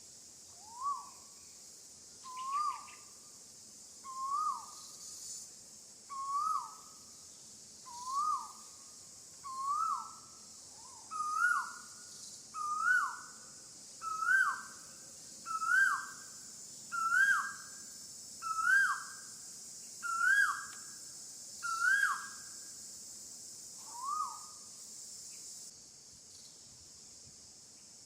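A bird calling one note over and over, about every second and a half. Each note sweeps up and drops, and the series climbs slightly in pitch before stopping near the end. A steady high insect drone runs underneath.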